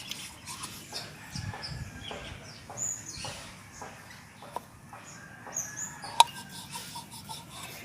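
Chickens clucking in the background, with scattered small clicks and one sharp click about six seconds in.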